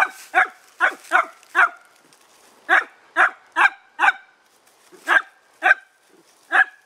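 A dog barking repeatedly in quick runs of two to four sharp barks, about a dozen in all, with short pauses between the runs.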